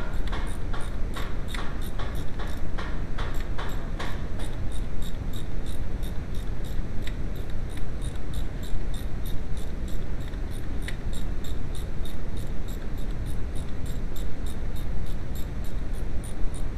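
Hand ratchet clicking in an even rhythm, about three clicks a second, fuller and louder for the first few seconds and then lighter, over a steady low rumble.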